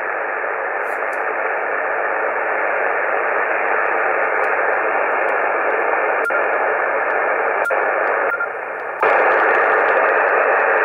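Single-sideband transceiver on the 11-metre band in receive, giving out steady static hiss with no station answering, as heard while listening for replies after a CQ call. The hiss dips briefly about eight seconds in, then comes back louder.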